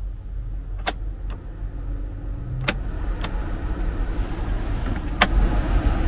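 Renault Master cabin blower fan spinning up as the fan speed is turned up, a steady rush of air through the vents that grows louder, now without the rattling, ticking noise because the debris is cleared from the blower drum. A few separate sharp clicks along the way.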